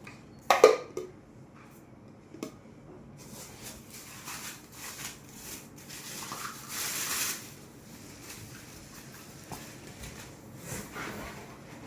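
Packaging being handled and unwrapped: a sharp knock about half a second in, a lighter tap a couple of seconds later, then rustling of wrapping that is loudest midway.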